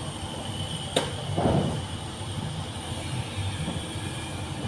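Outdoor background rumble, steady and low, with a sharp knock about a second in and a brief louder noise just after.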